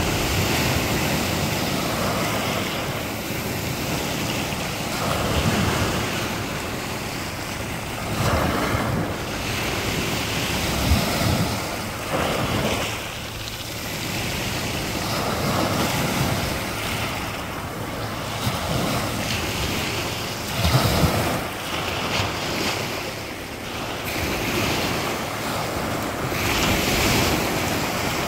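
Small Baltic Sea waves breaking and washing up a pebbly shore, a continuous rushing surf that swells and ebbs every few seconds, with wind rumbling on the microphone at times.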